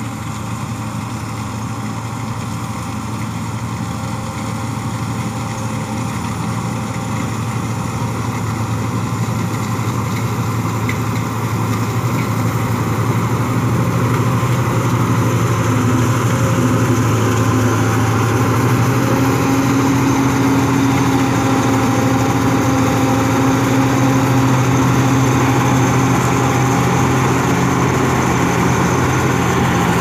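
Combine harvester running steadily as it cuts wheat, its engine and threshing works making a continuous hum that grows louder as the machine comes up close.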